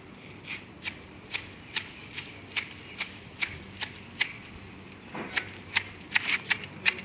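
Hand pruning shears snipping through twigs and leaves while a garden tree is trimmed to shape. The cuts come at a steady two or three a second, pause briefly, then come faster and more irregularly.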